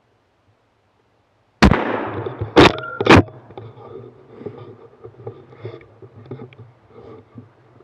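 A single hunting-rifle shot about a second and a half in, with a trailing echo, followed by two loud metallic clacks half a second apart as the bolt is worked. Then scuffing and rustling as the rifle is moved.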